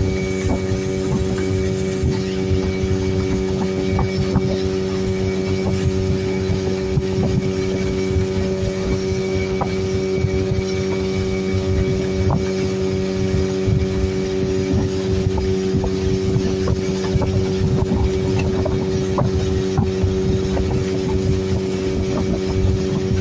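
Motorboat engine running at a constant speed, a steady unchanging drone, with the rush of water and wind noise underneath.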